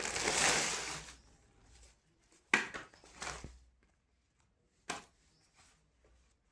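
Packaging crinkling as it is handled, dying away about a second in, followed by three brief knocks or clicks.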